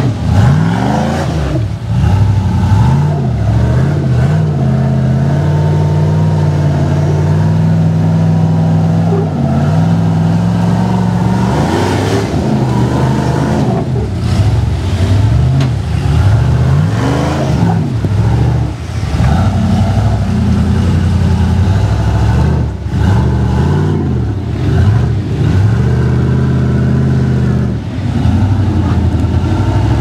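Rock buggy's engine working under load as the buggy crawls up rock ledges. It holds steady revs for several seconds at a time, broken by repeated short revs that rise and fall.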